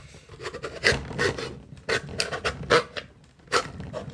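Knife blade stabbed and levered into the metal lid of a tin can to cut it open: an irregular series of sharp metallic scrapes and strikes, about two or three a second, with the can ringing after each.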